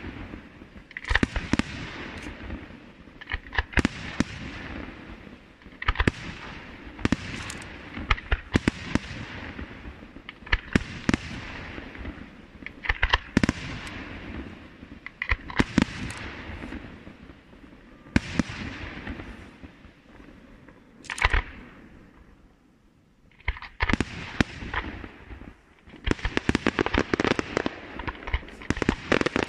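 Aerial fireworks display: shells bursting every second or two, each followed by a fizzing crackle. After a brief lull near the end comes a dense barrage of rapid bangs.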